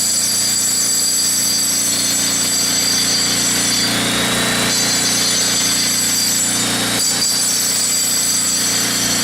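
Loud, steady power-tool noise running without a break, with a constant mix of whining tones over a noisy rasp.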